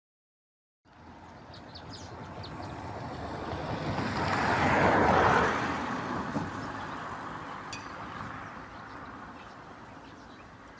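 A vehicle passing on the road, its engine and tyre noise building from about a second in to a peak near the middle, then fading slowly away.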